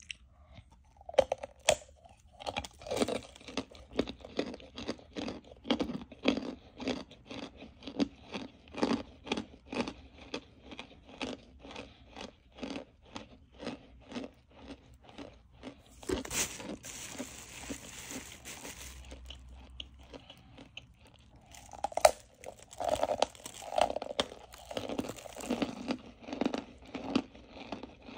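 A person crunching and chewing brittle chunks close to the microphone, about two chews a second. About two-thirds of the way through there is a few seconds of rustling, then hard bites and chewing again near the end.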